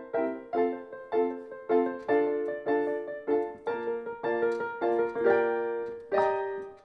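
Background music: a piano playing a gentle melody of single notes and chords, about two notes a second. It slows near the end into a held chord that fades away.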